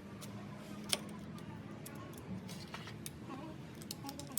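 Scattered light metallic clicks and taps of transmission parts and tools being handled, the sharpest about a second in, over a low steady background hum.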